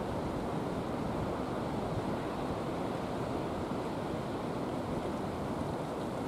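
Steady low rushing outdoor background noise with no distinct events.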